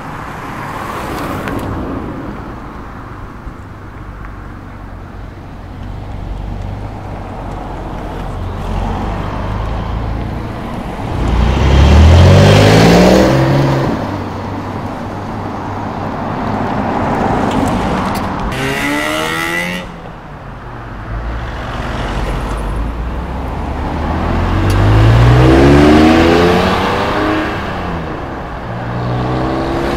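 Sports car engines accelerating away one after another, each note climbing in pitch as the engine revs up. There are about four pulls, and the loudest comes a little before halfway.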